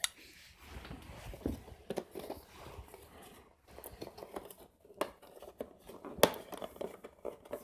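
Cardboard retail box being picked up, turned over and set on a wooden desk: soft rustling and scraping of card, with a few sharp knocks, the loudest about six seconds in.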